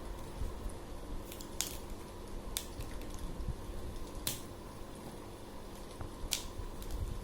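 Plastic connector pens being snapped together and handled, with several sharp clicks a second or two apart over low rustling handling noise.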